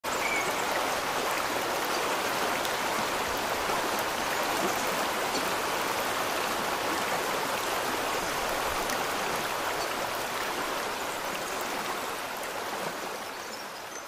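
Waterfall pouring down into a narrow rock canyon: a steady rush of falling water that fades out near the end.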